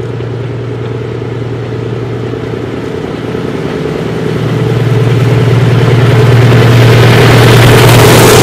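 Narrow-gauge diesel locomotive approaching with its engine running, a steady hum that grows louder from about halfway through as it draws close. Near the end the rattle of the passing train joins in.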